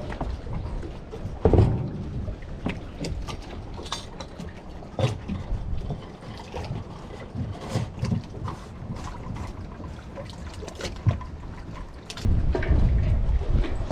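Water sloshing against a small boat with wind rumble on the microphone, louder near the end, and scattered light knocks and clicks.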